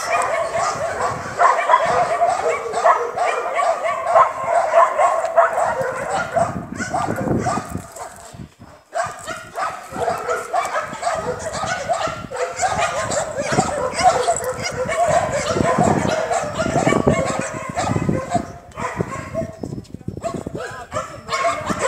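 Many shelter dogs barking at once: a dense, continuous chorus of overlapping barks and yips, with a short lull about eight seconds in.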